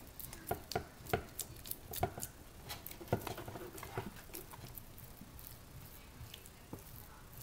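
Bare hands kneading and pressing raw ground turkey mixed with egg in a metal baking pan: quiet, irregular pats and sticky clicks, fewer in the last few seconds.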